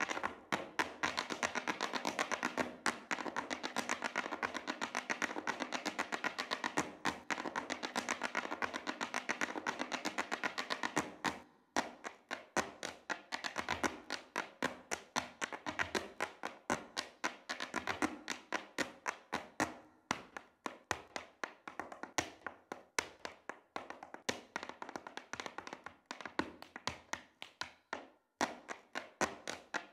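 Irish dance hard shoes striking the stage in fast rhythmic patterns over music, with a short break a little before the middle; the music underneath is thinner in the second half.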